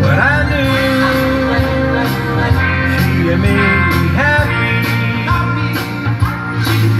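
A man singing into a studio microphone over instrumental backing music, his voice gliding between held notes.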